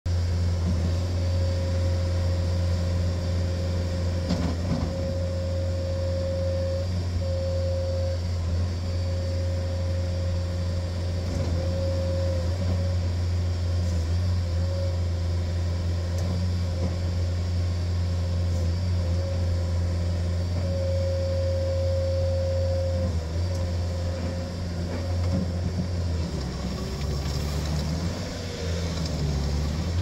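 Bobcat T650 tracked skid steer's 2.4-litre four-cylinder turbo diesel running steadily as the loader works, with a higher whine coming and going over the engine hum. Near the end the engine note drops and changes.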